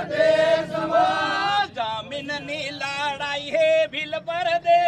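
Male voices singing a chant-like folk song, long held notes with bending pitch.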